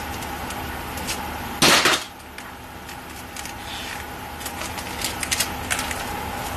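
Small handling noises at a workbench: scattered light clicks and clinks, with one short, loud scraping rustle about two seconds in, over a faint steady hum.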